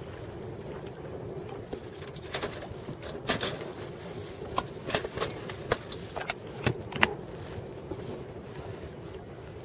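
Steady low hum and wind aboard a small wooden fishing boat, with about a dozen sharp knocks and clicks in the middle stretch.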